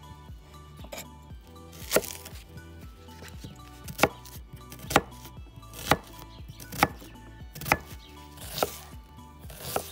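Large kitchen knife cutting through an onion and knocking on a wooden cutting board, with sharp chops about once a second starting about two seconds in. Quiet background music plays underneath.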